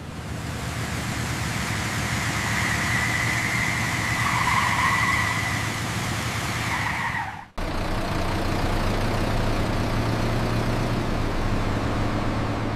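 A steady hiss with a faint high whistle that cuts off suddenly about seven and a half seconds in, followed by a bus engine idling steadily.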